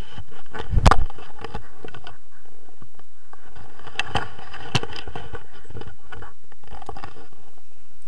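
Handling noise from a hand-mounted action camera being knocked and dragged through grass: a loud thump about a second in, then scraping and rustling, with two sharp knocks about four and five seconds in.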